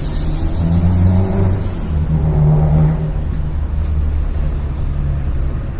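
Daytime city street traffic: a motor vehicle's engine running close by, its pitch shifting slightly, with a short hiss right at the start.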